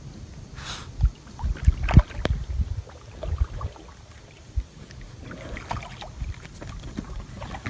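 Wind buffeting the microphone and water around an inflatable kayak out on the water, with a few low thumps between one and two seconds in.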